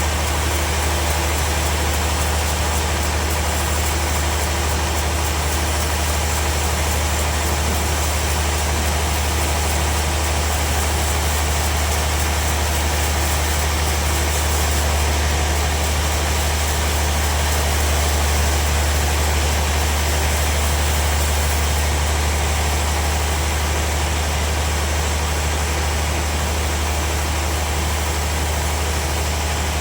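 Sawmill machinery running with a steady, deep engine hum that holds an even level throughout.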